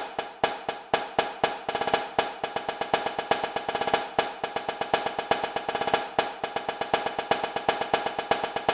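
Snare drum cadence: evenly spaced strokes that quicken into rapid rolls about two seconds in, fading out near the end.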